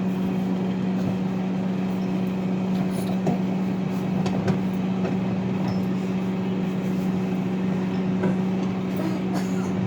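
Microwave oven running with a steady hum while heating a bar of soap.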